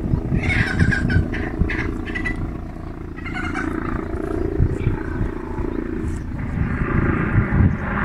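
Chickens in a pen calling, a few short calls in the first half and fainter ones after, over a steady low rumble of wind on the microphone.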